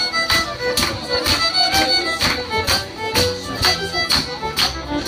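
Fiddle playing a lively folk tune, with a steady percussive beat about twice a second.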